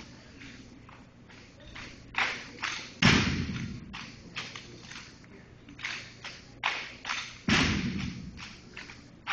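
Cadets of an armed drill team working their drill rifles in unison: a series of sharp slaps and clicks of hands on the rifles. Two heavy thuds on the hard floor, about three seconds in and again about seven and a half seconds in, echo through the hall.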